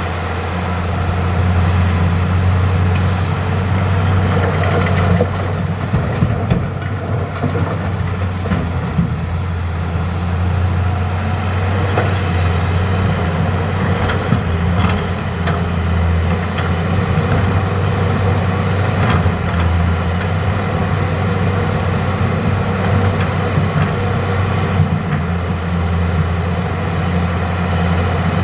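Hitachi hydraulic excavator's diesel engine running steadily at working speed, with a few short knocks along the way.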